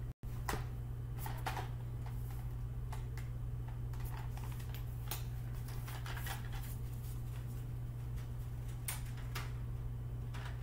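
Room tone: a steady low hum with scattered faint taps and clicks.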